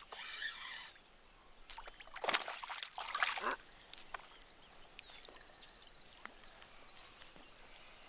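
A hooked tararira (trahira) thrashing at the water's surface as it is reeled in close, with two loud bursts of splashing about two and three seconds in. A few faint high chirps follow.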